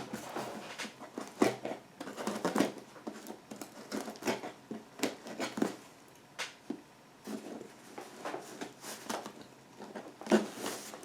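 Small scissors snipping at a cardboard package, with irregular sharp clicks and rustles as the box is handled.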